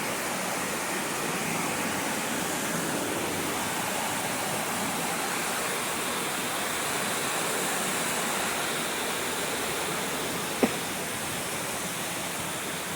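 Steady rushing of water at the top of Dunning Springs waterfall, where the spring pours out of a cave. A single short click sounds near the end.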